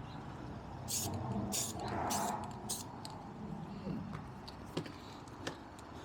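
Short bursts of an aerosol spray-paint can being sprayed onto metal parts, about four quick hisses in the first three seconds, followed by a few faint clicks.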